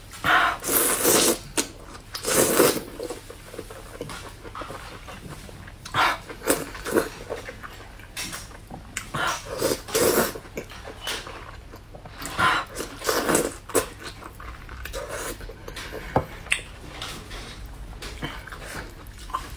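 Close-up mouth sounds of a person eating soft, saucy eggplant strips: wet slurps, sucking and squelchy chewing in irregular bursts, loudest in the first few seconds.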